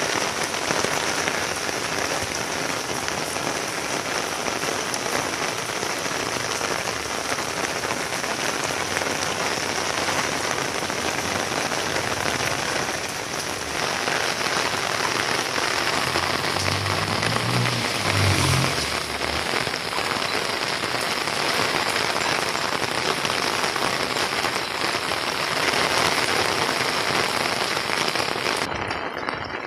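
Heavy rain falling steadily on a wet concrete courtyard, a dense even hiss, with a brief low rumble a little past halfway.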